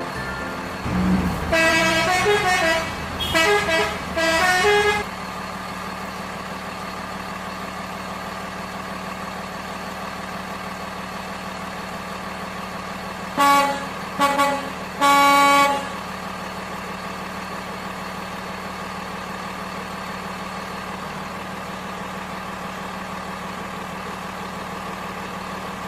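Truck sounds: a steady engine drone throughout, with a wavering horn in several blasts over the first few seconds, then three short horn honks about halfway through.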